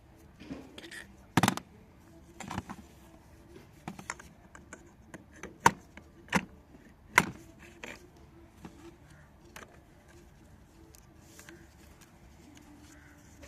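About a dozen sharp clicks and knocks at irregular intervals, the loudest about a second and a half in and in the middle, dying out for the last few seconds.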